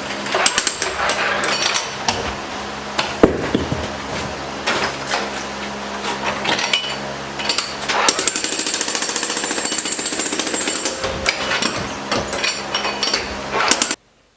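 Jackhammer chipping out a concrete curb: fast, steady hammering with louder knocks here and there. It cuts off suddenly near the end.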